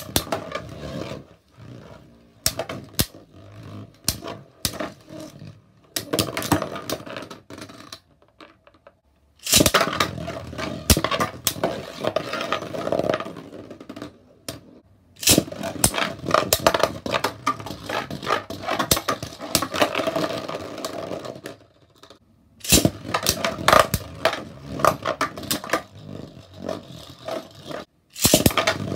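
Beyblade Burst spinning tops whirring and scraping on a plastic stadium floor, with sharp clacks as they strike each other. The noise dies away and starts again with a loud clack three times, about 9, 15 and 22 seconds in, and once more near the end.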